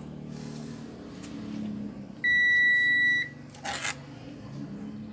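A single electronic beep: a steady high tone lasting about a second, starting about two seconds in, and the loudest sound here. A short hiss follows about a second later over a low background hum.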